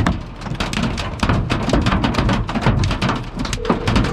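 Hailstones pelting a car's windshield and roof, heard from inside the cabin: a loud, dense, irregular clatter of hard hits. A steady tone joins near the end.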